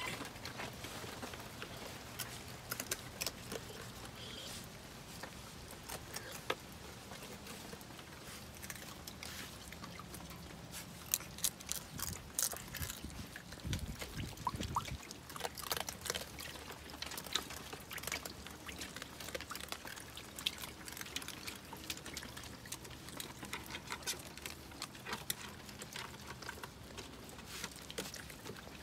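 Young raccoons paddling and pawing through water in a shallow plastic tub: splashing and trickling, with many small sharp clicks and taps throughout. A brief low rumble comes near the middle.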